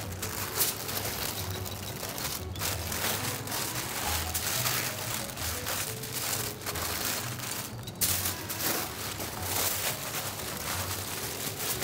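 Background music with a steady low beat, over the crackling and crinkling of baking paper and aluminium foil being folded around meat.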